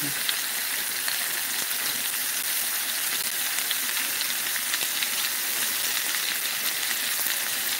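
Ground chuck and Italian sausage meatballs frying in hot oil in a stainless skillet: a steady sizzling hiss with small crackles and pops.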